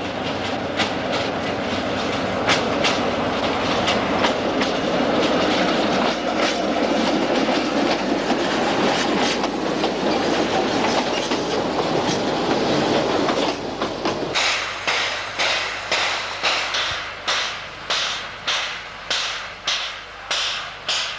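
A diesel-hauled narrow-gauge train passes close, running steadily, its wheels clicking over the rail joints. About two-thirds of the way through, the sound switches to a steam locomotive's exhaust chuffing evenly, about two beats a second.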